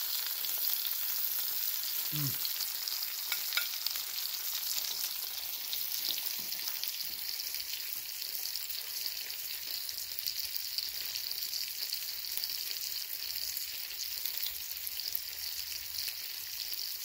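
Pork butt steaks in barbecue sauce frying on a hot Blackstone flat-top griddle: a steady sizzle, with a few faint clicks.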